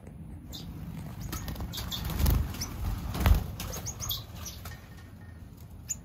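Small aviary birds, Rosy Bourke's parakeets and finches, chirping in short high notes, with wings flapping. Two low thumps come about two and three seconds in, the second the loudest sound.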